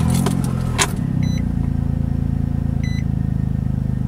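Infiniti G35's V6 engine starting: it catches at once with a brief flare of revs, then settles into a steady idle at about 1,000 rpm. A couple of clicks sound in the first second, and an electronic chime beeps twice.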